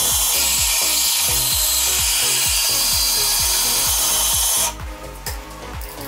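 Proxxon bench band saw ripping a thin sheet of light wood: a loud, steady cutting hiss that stops suddenly about four and a half seconds in. Background music with a steady beat runs underneath.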